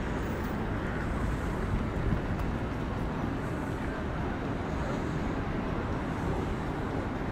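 Wind rumbling on the microphone, with the steady noise of an open city street behind it.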